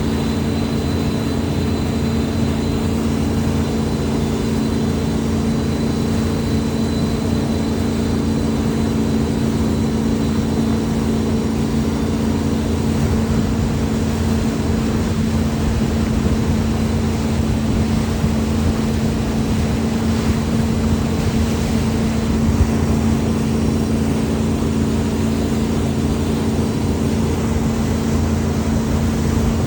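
A motor running steadily at constant speed, a loud drone with an unchanging pitch.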